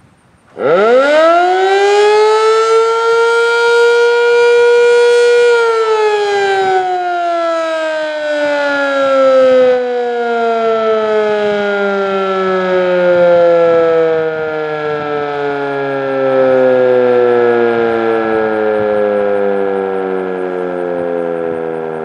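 Sentry 7V8-B outdoor warning siren sounding its daily noon blast. About half a second in it winds up quickly to a steady high tone, holds it for about five seconds, then winds down in a long falling tone that is still sounding at the end.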